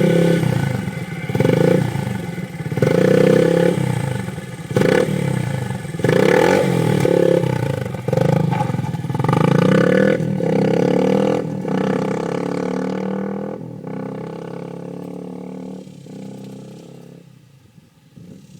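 Honda CRF230M's single-cylinder four-stroke engine through a Two Brothers aftermarket exhaust, revved up and down repeatedly with the pitch rising and falling, then holding steadier and fading away over the last several seconds.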